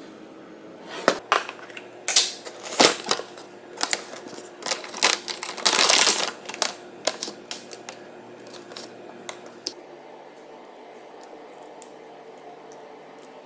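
Plastic bag in a cardboard box of frozen tempura shrimp crinkling and rustling as a hand reaches in, loudest about six seconds in, amid sharp clicks and knocks of packaging being handled on a counter. After that, only faint small crackles over a low steady hum.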